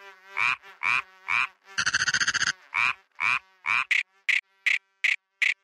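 Recorded frog croaks played as TV sound-demo content: short croaks about twice a second, a rapid rattling trill about two seconds in, and quicker, higher-pitched croaks near the end.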